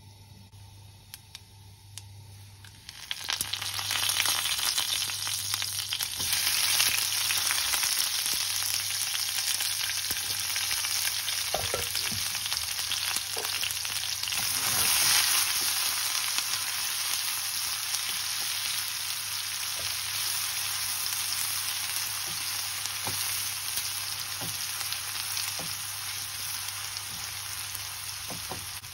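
Food hitting hot oil in a pan and frying: a sizzle starts suddenly about three seconds in and slowly dies down, with a few light knocks of a utensil stirring.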